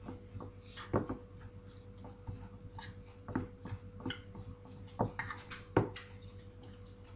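Irregular knocks and clicks from a bowl of cutlet mixture being stirred and mixed by hand, with a few sharper knocks against the bowl, over a faint steady hum.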